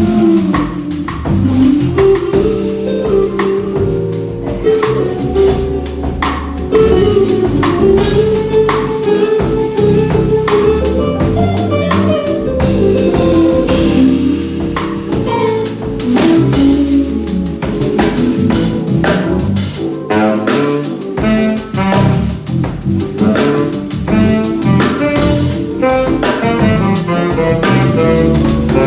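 A live band plays a song through, with a drum kit keeping a steady beat under a bass line and melody instruments.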